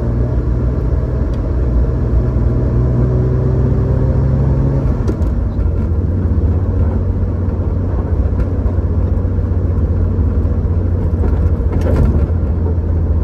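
1965 Chevrolet Corvair's air-cooled flat-six engine running as the car drives along, a steady low drone with road noise. The engine note drops in pitch about five seconds in.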